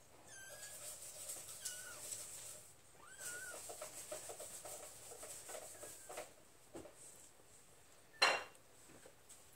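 Young kittens mewing: a few short, high, wavering mews in the first few seconds. A sharp knock about eight seconds in is the loudest sound.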